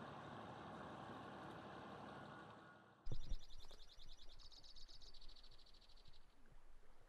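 Heavy machinery engine running steadily, fading out about three seconds in. Then a thump and a high, rapid trill lasting about three seconds.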